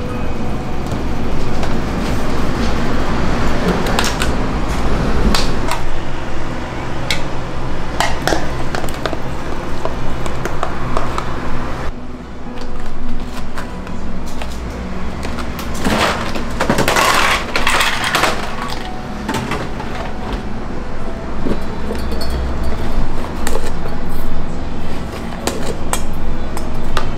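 Clinks and knocks of plastic cups, containers and steel utensils on a steel counter, with a denser stretch of clatter past the middle, over soft background music.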